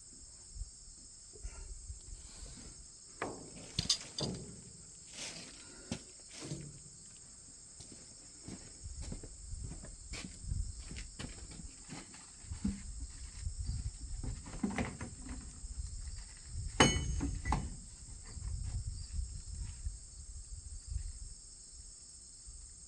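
Scattered knocks and clunks of parts and tools being handled while working on a combine's sprocket drive, the loudest about 17 seconds in. A steady, high chorus of crickets runs underneath.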